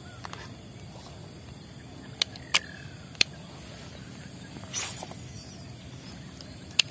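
A few sharp clicks and a short swish a little before five seconds in: a fishing rod and reel being handled and cast with a lure, over a low steady outdoor background.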